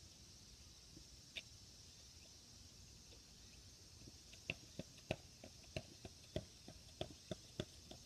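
A run of sharp clicks or taps, roughly three a second, starting about halfway through, over a faint steady hiss; one lone click comes shortly before.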